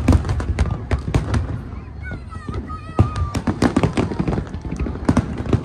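A fireworks display going off: a rapid, irregular run of bangs and crackles, with a wavering whistle about two seconds in.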